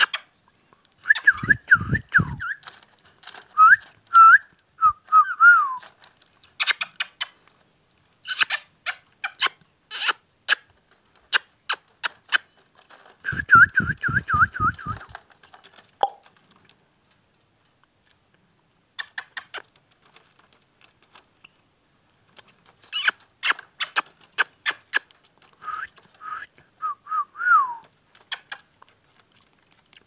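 Caged Indian ringneck parakeet (rose-ringed parakeet) chattering in quick squeaky, whistled notes, with many sharp clicks in between. It gives two short buzzing, rattling stretches, one in the first few seconds and one about halfway through. It goes quiet for a few seconds past the middle, then starts up again.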